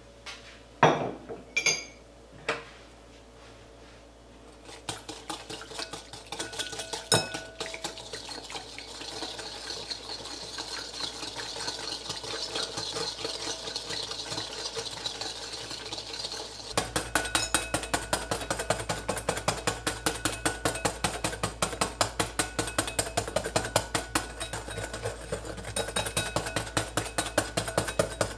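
Wire balloon whisk beating instant coffee, sugar and hot water by hand in a glass bowl, the wires clicking and rattling against the glass in rapid strokes as the dalgona coffee mixture is whipped. A few sharp clinks come in the first three seconds. The whisking starts about four seconds in and gets faster and louder about halfway through, at several strokes a second.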